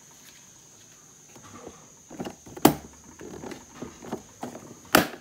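Plastic Craftsman stacking tool box organizer being handled: low rattling and knocking of its case and bins, then two sharp clicks a little over two seconds apart.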